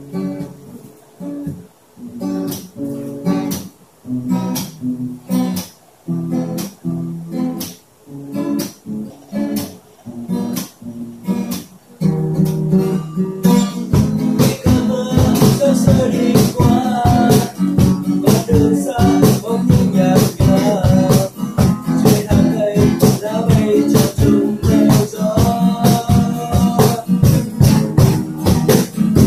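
Acoustic guitars strumming a slow, broken intro. About twelve seconds in, a hand-played drum beat joins and the music fills out, and a voice begins singing the melody over it soon after.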